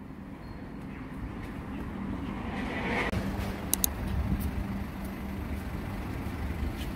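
Road traffic on a city street: a steady low rumble of passing vehicles, swelling as one goes by about three seconds in.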